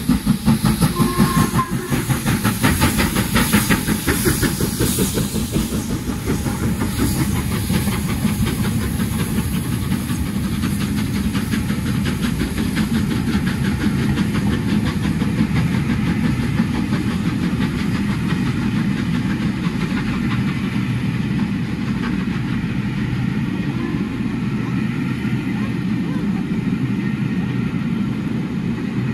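Two steam locomotives double-heading a train of Mk1 coaches through a station. A strongly pulsing exhaust is loudest over the first several seconds, then it gives way to a steady rumble and fast clatter of the coaches' wheels on the rails.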